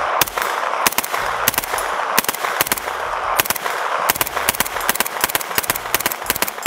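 HK SP5 9mm pistol firing a long string of rapid shots through a binary trigger, which fires on both the pull and the release of the trigger. Many of the shots come in quick pairs.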